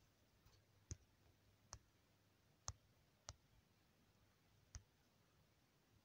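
Faint, short clicks of typing on a smartphone's on-screen keyboard, five key taps at uneven spacing over near silence.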